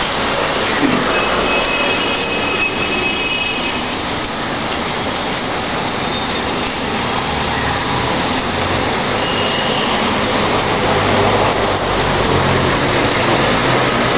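Steady, loud rushing noise of road traffic, with a few faint high tones about a second in.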